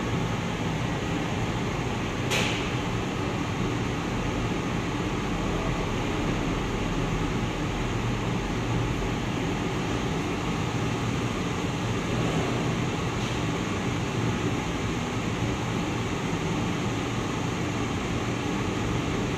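Two-colour UV-curing screen printing machine running: a steady mechanical hum and hiss, with one sharp click about two seconds in.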